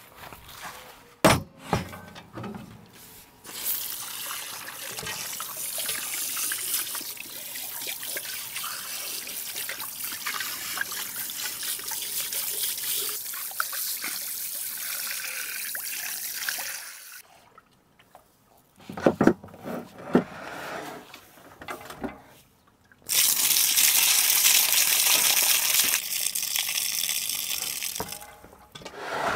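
Water from a garden hose running into a large metal basin in long steady stretches, with a pause in the middle and a few loud knocks of the basin. Near the end, hands slosh raw chicken pieces around in the water.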